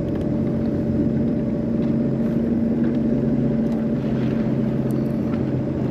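Jet ski engine running steadily at a constant pitch, with the rush of water and wind around it.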